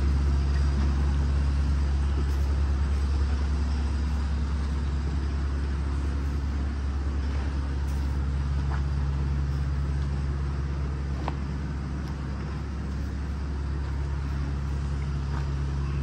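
Overhead line shaft and flat-belt pulley drive of a machine shop running: a steady low mechanical hum with a few faint clicks.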